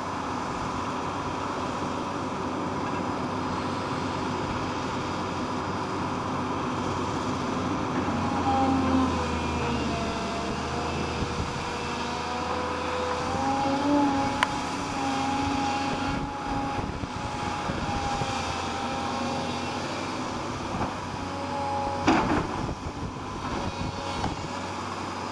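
Hydraulic excavator running and digging, its engine and hydraulics giving a steady drone with a whining tone that shifts in pitch and swells about a third of the way in. A couple of short clunks from the bucket come midway and near the end.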